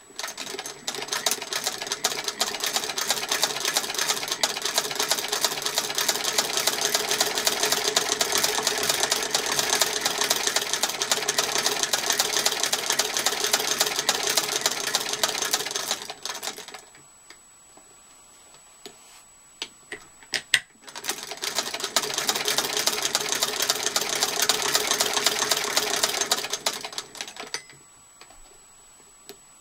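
1874 Singer Model 12 fiddlebase sewing machine, hand-cranked, stitching cloth with a rapid, even ticking for about sixteen seconds before it stops. After a pause with a few sharp clicks, it is cranked again for about five seconds and stops near the end.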